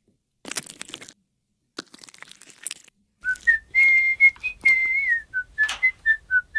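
Light clattering, then from about three seconds in a person whistles a short tune of held and brief notes that step up and down in pitch.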